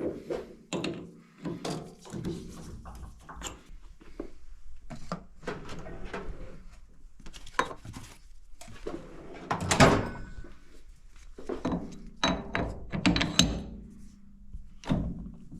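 Irregular clunks and knocks of a short length of round metal bar stock being handled and set up on a small metal lathe. The loudest knock comes about ten seconds in.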